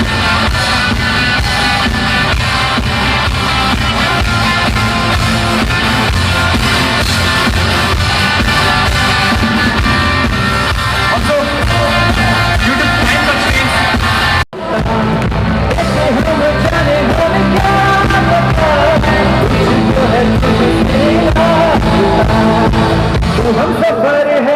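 Live band playing rock-style music with guitar, drums and a singer. The sound breaks off for an instant about halfway through, then the music comes back with singing.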